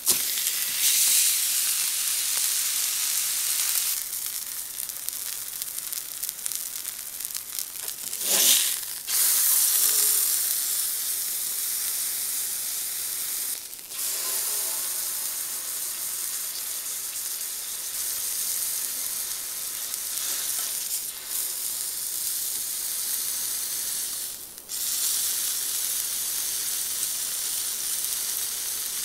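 Thick ribeye steak searing on a hot steel griddle plate, a steady loud sizzle with fat bubbling and spattering. The sizzle dips briefly a few times.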